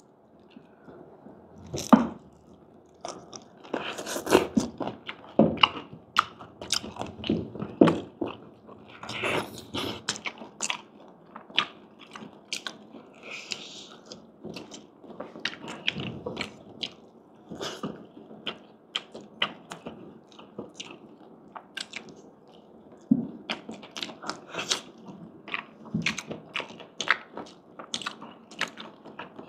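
Close-miked chewing with many irregular, sharp crunches of crispy fried pork skin being bitten and chewed.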